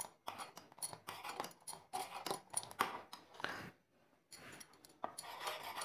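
Steel spoon scraping and clicking against the inside of a stainless steel saucepan while milk is stirred as it boils down, in quick irregular strokes with a short pause about four seconds in.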